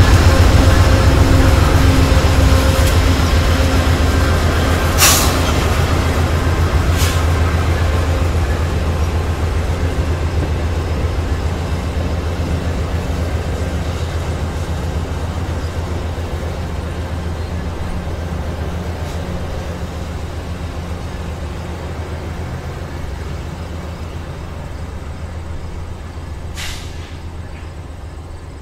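Two GE P42DC diesel locomotives, each with a 16-cylinder engine, working under power as they pull a passenger train away, with the rumble of the coaches rolling over the rails. The low engine drone fades steadily as the train draws off, and a few brief sharp noises break through about five and seven seconds in and again near the end.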